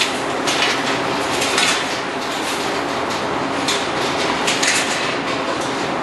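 Steel sow-stall gates and bars clanking and rattling as a sow moves through the stall, in repeated clatters over a steady noise.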